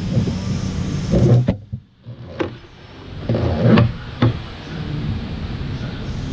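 Handling knocks, rubbing and a few sharp plastic clicks as a round plastic bulkhead fitting and flexible PVC hose are worked into a hole in a boat's fiberglass panel, over a steady low background noise.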